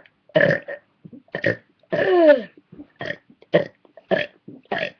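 A person burping a tune, one burp per note: about eight short pitched burps in a row, with a longer one about two seconds in that slides down in pitch.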